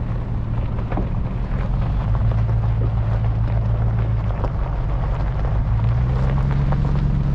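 Supercharged Range Rover P38 driving off-road, heard from inside the cabin: a steady engine drone that rises a little in pitch about six seconds in, with scattered clicks and knocks throughout.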